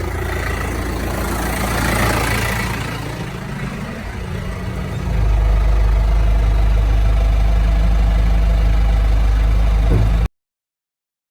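Tractor engine running steadily. About five seconds in, its low rumble steps up louder and holds, then the sound cuts off abruptly near the end.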